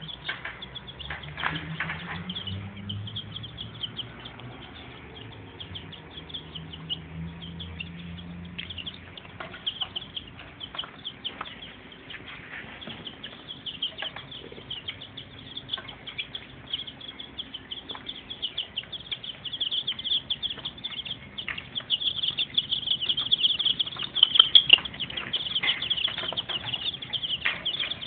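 A cage of young chicks peeping constantly in short high peeps, denser and louder in the second half. A low hum sits underneath during the first several seconds.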